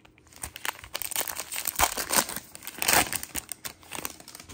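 Foil wrapper of a football trading-card pack crinkling and tearing as the pack is ripped open by hand, a dense run of crackles loudest in the middle.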